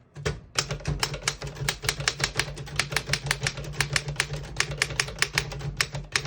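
Royal 10 manual typewriter being typed on: a fast, uneven run of sharp key strikes, about five a second, beginning about half a second in.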